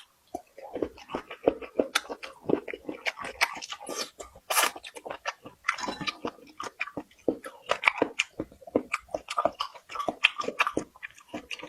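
Close-miked chewing of a mouthful of food, a dense run of quick, irregular mouth clicks and smacks.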